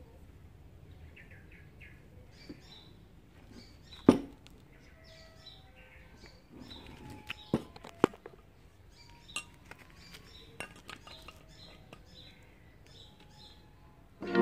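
Sharp metal clicks and clinks of small steel hex screws, nuts and washers being handled and fitted to an aluminium bracket, the loudest about four seconds in and a scatter more later, over faint chirping.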